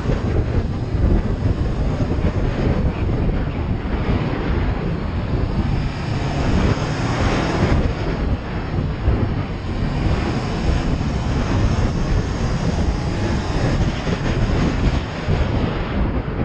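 Honda CB500X's parallel-twin engine running under way on the road, mixed with steady wind rush on the microphone.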